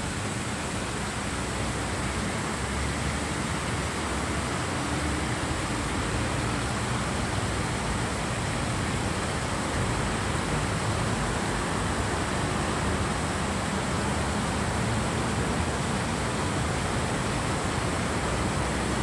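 Water cascading down a stepped brick water-wall fountain, a steady splashing rush that grows a little louder partway through.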